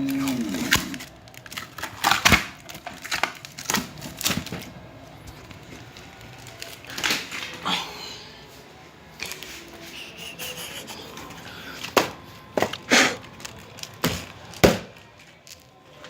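Irregular sharp knocks and taps with scraping and rustling between them, like wooden pieces being handled and set down. There is a loud knock about two seconds in and a cluster of knocks near the end.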